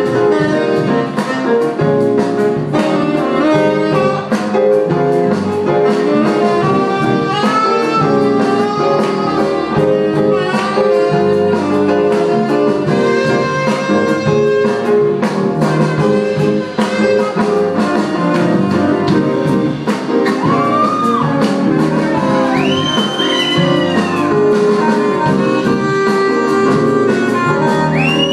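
Live jazz band with a saxophone section playing together, a drum kit keeping a steady beat underneath.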